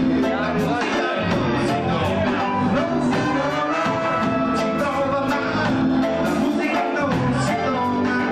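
A reggae band playing live, with drum kit and amplified instruments keeping a steady beat.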